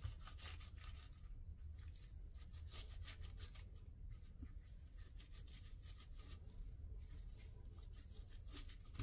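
Faint tearing and crinkling of the red paper wrapping being peeled off a 3-inch firework ball shell, a steady run of small crackles over a low hum.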